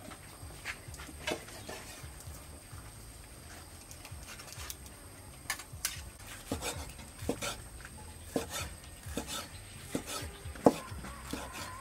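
Cleaver slicing cooked pork on a round wooden chopping block, each cut ending in a knock of the blade on the wood. The knocks are sparse at first, then come steadily at about two to three a second through the second half.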